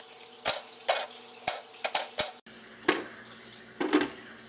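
Light plastic clicks and taps, about a dozen short hits spread unevenly, as plastic pod baskets and seed pods are handled and set into the holes of a hydroponic garden's plastic grow deck.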